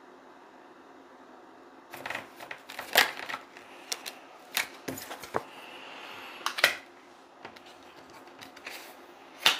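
Tarot cards being handled on a table: a card deck being shuffled and cards pulled and laid down, making a string of sharp snaps and taps that start after a couple of seconds of quiet. The loudest snaps come about three seconds in and near the end, with a brief sliding hiss about six seconds in.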